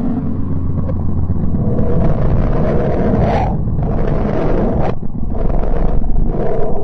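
Sonified space data presented as the sound of the planet Mercury: electromagnetic or plasma wave recordings converted into the audible range. A deep, steady rumbling drone carries hissing swells that rise and fall; one cuts off suddenly about five seconds in, and another follows shortly after.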